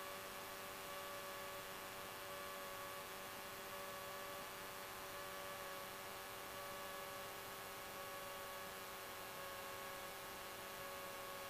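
Faint steady electrical hum and hiss on the aircraft's radio and intercom audio feed, with a few fixed tones and no speech.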